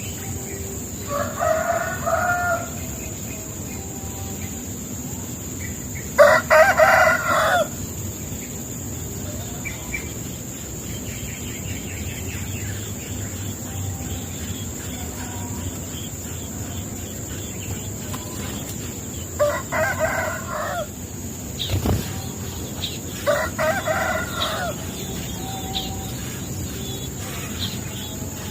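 A rooster crowing four times, each crow about a second and a half long: two in the first several seconds and two more later, a few seconds apart.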